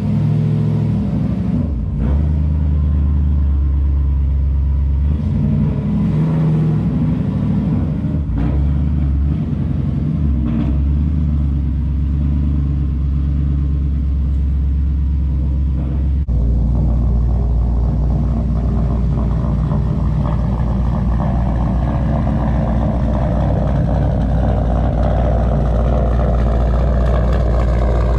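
Turbocharged 6.0 V8 of a GMC 2500HD pickup, with a rear-mount turbo, running. About sixteen seconds in the sound changes abruptly to a deeper, fuller note, and over the last ten seconds a whine climbs slowly in pitch.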